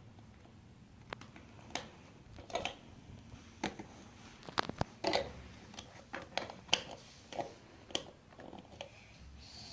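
Plastic toy building blocks clicking and knocking as pieces are handled and pressed together: irregular sharp clicks, more than a dozen, starting about a second in.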